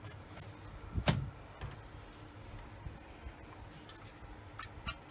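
Handling of an LCD monitor's sheet-metal chassis and circuit boards during disassembly: one sharp knock about a second in, then a couple of light clicks near the end.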